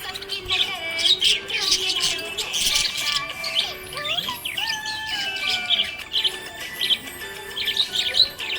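Budgerigars chirping in quick busy clusters of short high notes, with a few longer falling whistles about halfway through.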